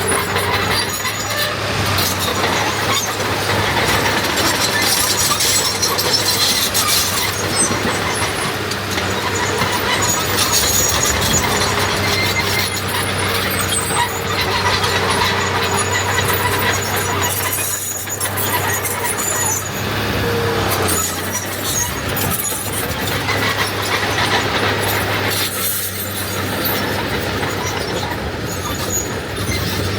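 Diesel earthmoving machinery (bulldozer and dump trucks) running steadily at work, with scattered high squeaks over the engine hum.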